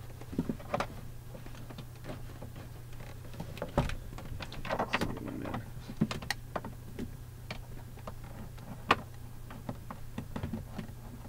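Scattered plastic clicks and taps as door-trim parts are handled and pressed into a truck's door panel, heard over a steady low hum.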